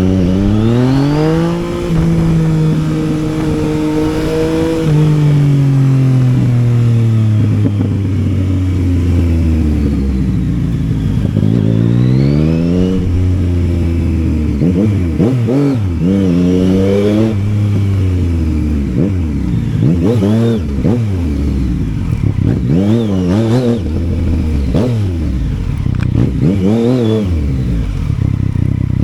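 Yamaha Tracer 900's inline three-cylinder engine under way, revving up and rolling off again and again. The engine note holds high, then falls slowly for several seconds; in the second half come a string of quick rises and drops.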